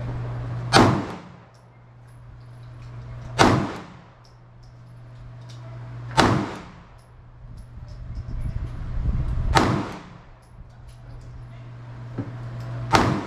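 Five single pistol shots from a 9mm handgun, fired slowly, about three seconds apart.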